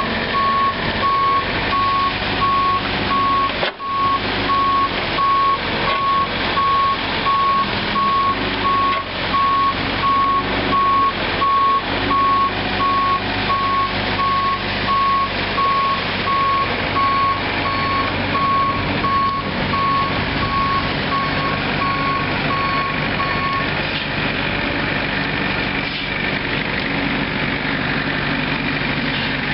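John Deere 50 ZTS mini excavator's Isuzu four-cylinder diesel running while the boom and bucket are worked, with a vehicle's reversing alarm beeping steadily a little faster than once a second over it. The beeping stops about three quarters of the way through, leaving the diesel running.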